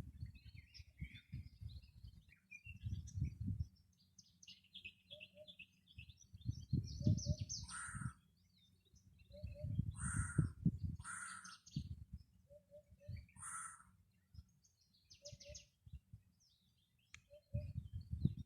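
Mixed birds singing in a morning chorus: many short high chirps and trills, a harsh call repeated four times, and a short two-note call recurring at intervals. A low rumble comes and goes in gusts underneath and is the loudest sound.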